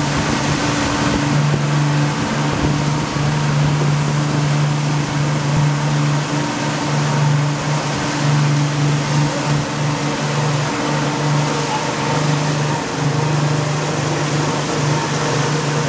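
Engine of a motorboat running steadily at cruising speed: a constant low hum, with a rush of wind and water over it.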